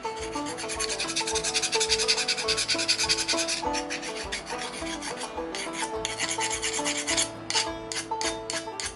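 Rasping strokes of hand work on a small steel knife blank: one long continuous stretch, then shorter separate strokes, quickening to about two a second near the end. Acoustic background music plays underneath.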